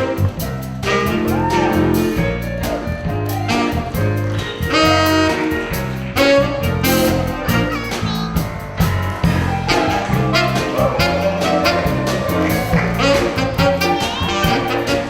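Band music in a jazz style: melody instruments over a bass line that moves note by note about twice a second, without a break.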